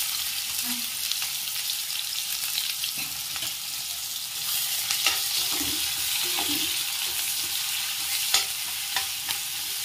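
Sliced onions sizzling in hot oil in a non-stick wok, a steady hiss. In the second half a spatula stirs them, with a few sharp clicks against the pan.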